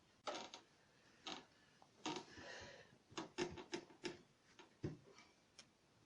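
Irregular light clicks and knocks from tools being handled and set up for drilling, with a short rustle about two seconds in.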